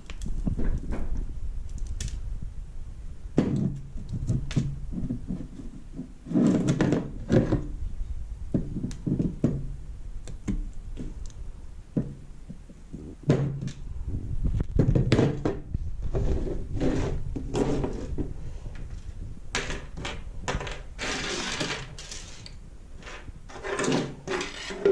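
Irregular knocks, thuds and clatter of hard objects being handled and set down, with a short rushing noise about three quarters of the way through.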